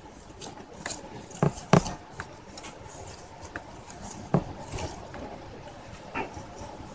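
Light rustling and handling noises from hands working among the leaves of a potted money plant, with three sharp knocks: two close together about a second and a half in and one past four seconds.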